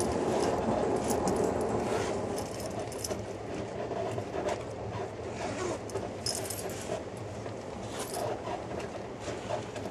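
Passenger train running on the rails, heard from inside the car: a steady rumble with scattered clicks and rattles, a little louder for the first two seconds.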